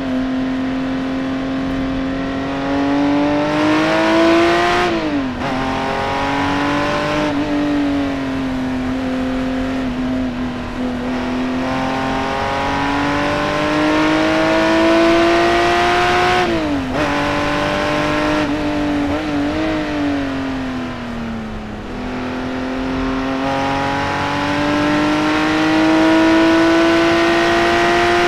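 Singer-reimagined Porsche 911's flat-six engine at full throttle on track, climbing in pitch as it revs out and dropping sharply at each upshift, twice. In the middle it sinks in pitch for a few seconds as the car slows, then pulls hard and climbs again.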